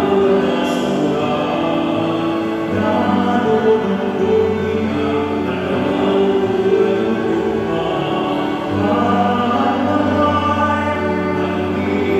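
A man singing the responsorial psalm into a microphone, holding long notes over an accompaniment whose bass notes change every couple of seconds.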